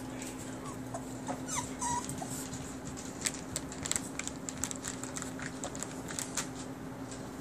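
French bulldog puppy giving a few short, high, falling whimpers, then a quick run of small clicks and ticks as it pads and sniffs about on artificial turf. A steady low hum runs underneath.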